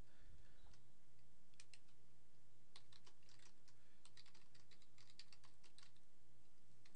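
Typing on a computer keyboard: an irregular run of key clicks starting about a second and a half in, over a steady low electrical hum.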